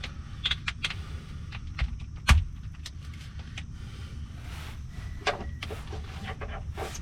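Metal hand tools clinking and knocking while the factory hitch-mounting bolts are worked on under the vehicle: scattered light clicks and one louder knock about two seconds in, over a steady low rumble.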